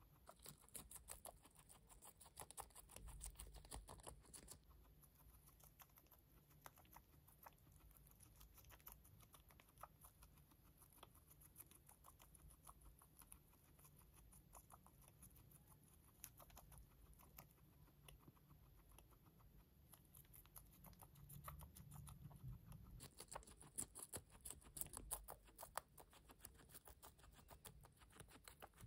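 Silkie guinea pig chewing a crisp lettuce leaf: rapid crunching clicks, heavier for a few seconds near the start and again near the end.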